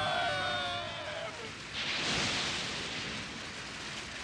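Animated-film sound effects: several screams drop in pitch and trail off over the first second. Then, about two seconds in, a sudden hissing splash of water rises and slowly fades.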